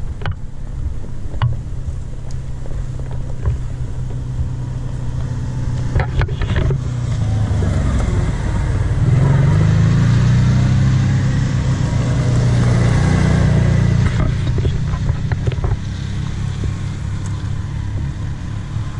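A Kawasaki side-by-side utility vehicle passing close alongside, its engine rising and falling in pitch and loudest from about nine to fourteen seconds in, over the steady hum of a pickup truck's engine running.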